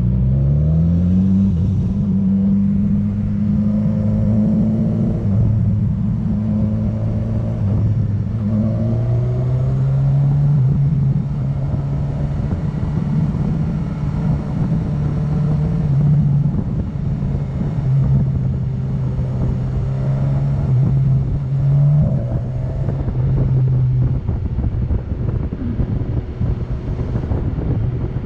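Motorcycle engine heard from the rider's seat, with road and wind noise: the engine note dips and climbs again in the first couple of seconds as the bike pulls away, holds steady, drops to a lower note about nine seconds in, then runs evenly at cruising speed. Near the end the engine note fades, leaving mostly road and wind noise.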